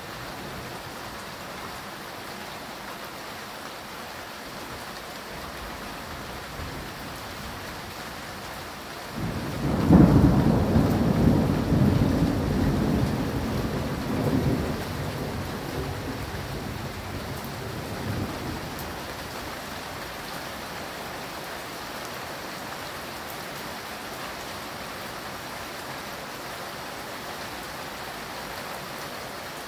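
Steady rain falling through a thunderstorm. About nine seconds in, a thunder roll starts suddenly, rumbles with several swells and dies away over roughly ten seconds.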